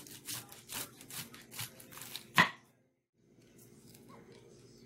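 Kitchen knife slicing green cabbage thinly on a wooden cutting board: a crisp cut-and-tap about twice a second, with one much louder sharp knock about halfway through. The sound then drops out for a moment before fainter slicing resumes.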